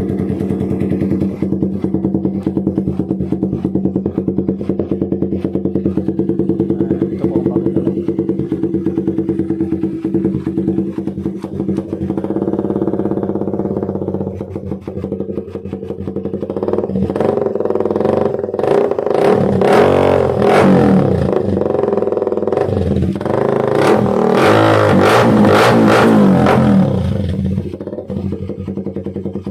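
Suzuki Raider 150's single-cylinder four-stroke engine idling steadily through an aftermarket exhaust, then revved repeatedly and louder for about ten seconds from just past halfway, dropping back to idle near the end.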